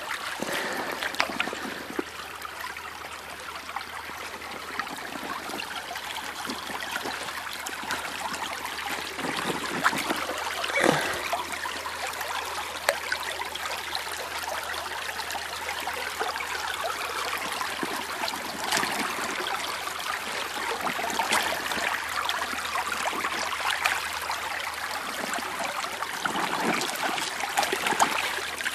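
Shallow creek trickling over a gravel bed in a steady wash, with a few short splashes from a boot wading through the water.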